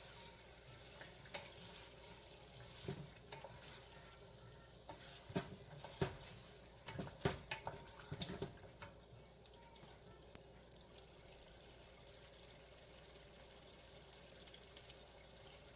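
Chicken pieces frying in hot oil with onions in a cooking pot, a faint steady sizzle. Spoon knocks and scrapes against the pot come repeatedly through the first half as the chicken is stirred.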